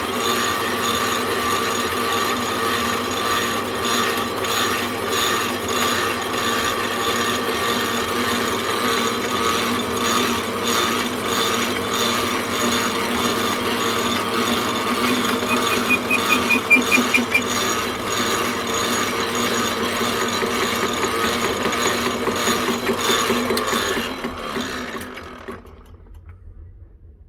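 Rexman 9-inch metalworking lathe running with a steady gear whine and fine rattle; it briefly grows louder with a high-pitched squeal partway through. Near the end the sound dies away over a couple of seconds as the lathe is shut off and runs down.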